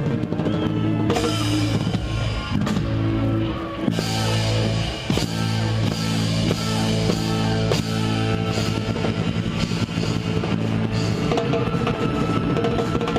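A live band playing rock music, with a drum kit and guitar over held chords.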